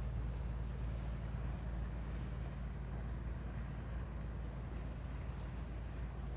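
Wind buffeting the microphone: a steady low rumble. A few faint, short high bird chirps come through now and then.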